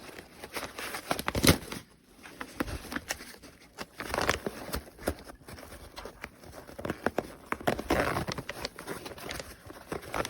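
Handling noise: irregular rustling and crinkling with scattered sharp clicks and light knocks, the loudest knock about a second and a half in.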